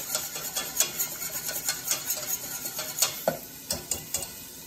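Wire whisk stirring in a stainless steel saucepan, a quick run of scraping clicks of metal on metal, with a few louder knocks about three seconds in before the whisking stops.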